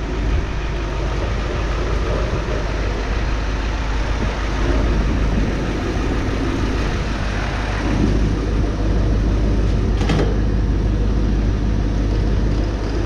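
Gas-fired forced-air aircraft engine preheater running, its burner and blower fan making a steady low drone. A sharp click about ten seconds in.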